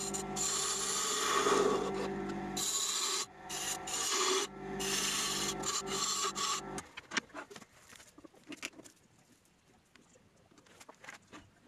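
A wood lathe runs with a steady motor hum while a hand-held turning tool cuts the end of a spinning lime-wood blank in repeated hissing bursts. The lathe stops suddenly about seven seconds in, followed by faint clicks and taps of hands on the workpiece.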